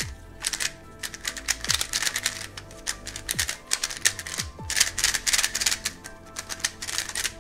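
Magnetic budget 3x3 speedcube, a QiYi Thunderclap V3M, being turned for the first time: quick runs of plastic clicking and clacking as the layers snap round, coming in bursts.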